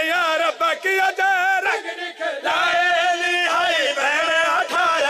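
Men's voices singing a drawn-out, wavering chant with vibrato on long held notes. This is the sung part of a mourning recitation, with a short break for breath about two seconds in.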